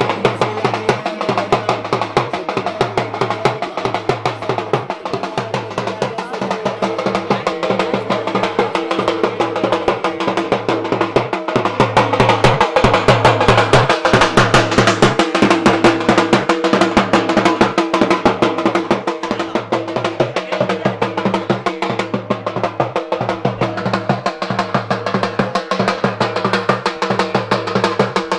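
Dhol, the Punjabi double-headed barrel drum, beaten in a fast, driving rhythm of dense strokes with a pattern repeating about every second and a quarter, a little louder around the middle.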